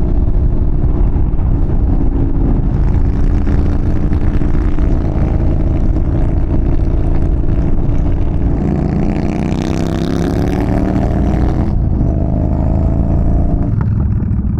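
Yamaha Bolt's air-cooled V-twin running under way, with wind noise over it. From about eight seconds in the engine note rises steadily as it accelerates, then drops suddenly near the twelve-second mark as it shifts up a gear.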